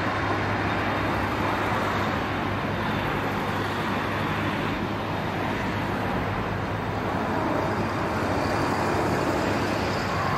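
Steady engine noise: an even rush with a low hum underneath, holding level with no rise or fall in pitch.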